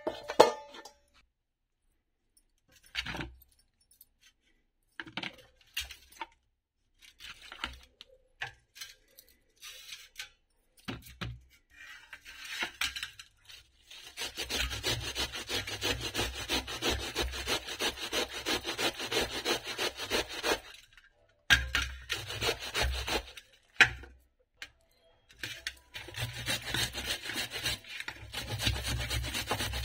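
Cabbage grated on a stainless-steel box grater over a steel plate: two long runs of fast, even rasping strokes, with a carrot grated near the end. It opens with a clank of a steel plate set over a steel bowl, then scattered light knocks.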